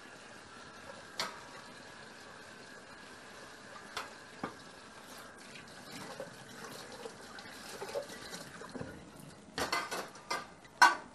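Water running from a kitchen tap while a dish is rinsed by hand in a stainless sink, with a few light knocks of dishware. Near the end comes a quick clatter of dishes, the loudest sound of all.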